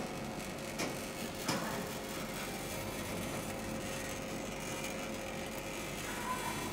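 Electric dough sheeter running steadily with a dough sheet passing through its rollers, with a couple of soft knocks about one and one and a half seconds in.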